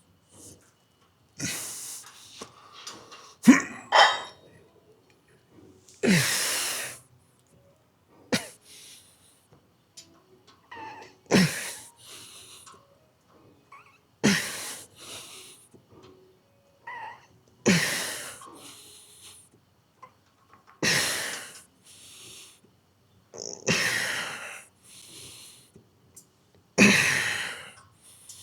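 A man's forceful exhalations, one sharp breath with a short voiced start on each rep of a set of rows, about every three seconds.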